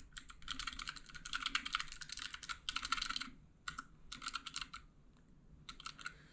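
Fast typing on a wireless mechanical numpad with clicky blue switches: a quick run of key clicks for about three seconds, then a few shorter runs of keystrokes with brief gaps.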